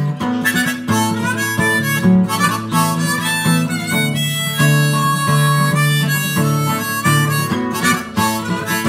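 Harmonica in a neck rack playing a melody of held, changing notes over a strummed Maton acoustic guitar.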